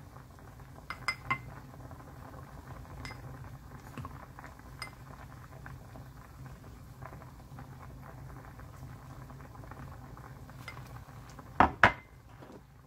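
Doenjang stew boiling hard in an earthenware ttukbaegi pot, a steady bubbling, while a wooden spoon skimming off the foam clicks against the pot now and then. Two loud knocks come close together near the end.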